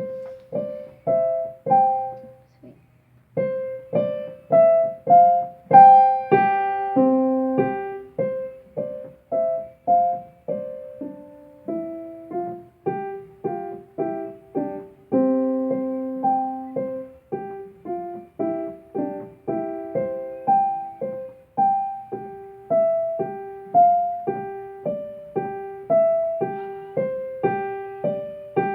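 Solo piano playing a slow, gentle tune of single notes in the middle register, each note struck and left to ring and fade, with a brief pause about three seconds in.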